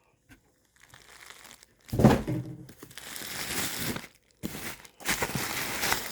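Packaging crinkling and rustling as it is handled, in spells with short pauses, with a loud thump about two seconds in.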